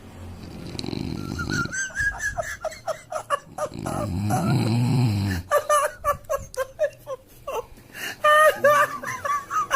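A sleeping person snoring twice, once about half a second in and again around four seconds in, each snore lasting over a second. Alongside it comes a lot of high-pitched giggling laughter, which is loudest near the end.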